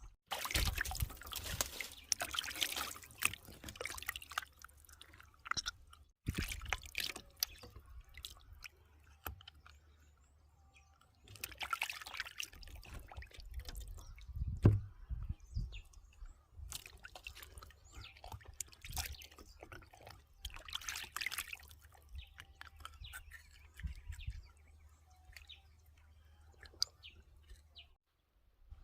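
Water sloshing, pouring and dripping in irregular bursts, the way food is washed by hand in a bowl during cooking preparation. One dull thump comes about halfway through.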